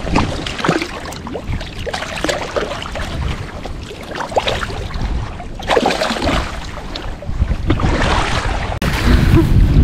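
Shallow water splashing and sloshing as a big bluefish is released by hand, with wind rumbling on the microphone. Near the end the wind rumble gets louder.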